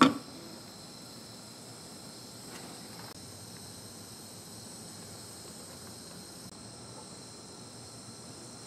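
Faint, steady hiss of a butane micro torch held on a solder-seal ring terminal, shrinking its insulation and melting the solder inside, with a steady high-pitched whine underneath.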